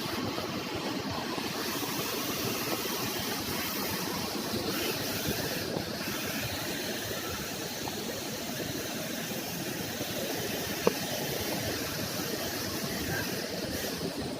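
Steady rushing roar of a waterfall, even and unbroken, with one short click about eleven seconds in.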